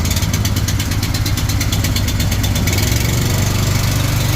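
Air compressor running steadily with a fast, even pulsing beat.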